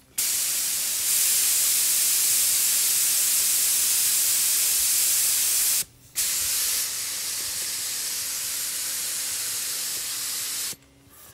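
3M AccuSpray HVLP spray gun hissing steadily as it lays a light coat of two-part epoxy primer at low air pressure. Two long passes, with a short break about six seconds in; the second pass is a little quieter.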